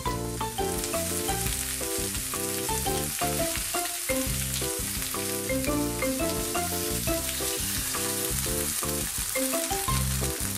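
Thick fried tofu sizzling in sesame oil in a frying pan as it browns over medium-high heat, an even frying hiss, over background music.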